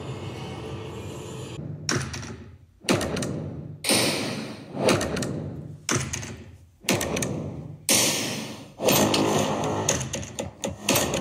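Background music with a hard, punchy hit about once a second, each fading before the next.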